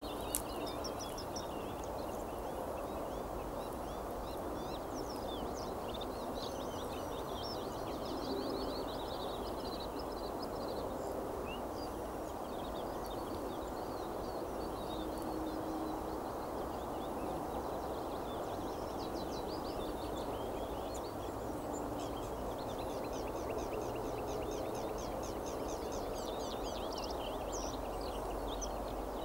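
Small songbirds chirping and singing in quick, high notes, scattered all through, over a steady low rushing background noise.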